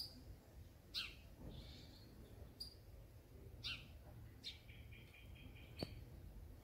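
House sparrows chirping: short, high chirps about once a second, then a quick run of repeated chirps about three-quarters of the way through.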